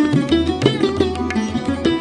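Sarod playing a rapid plucked melody in raga Jaunpuri, with sliding notes, accompanied by tabla with deep, sustained bayan strokes.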